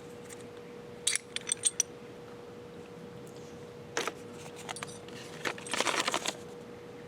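Light metallic clinks and jangling in scattered bursts as a metal tire-plug insertion tool is pushed into a punctured tire: a few clinks about a second in, one near four seconds, and a longer clatter around six seconds. A faint steady hum runs underneath.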